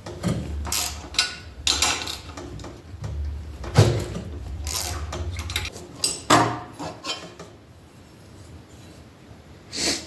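Metal hand tools clicking and clanking, with a string of sharp knocks, as the exhaust is unbolted and taken off a Predator 224cc small engine.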